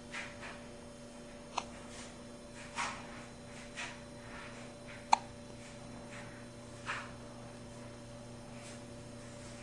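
A small boy hiccuping repeatedly at uneven intervals, the loudest a sharp hic about five seconds in.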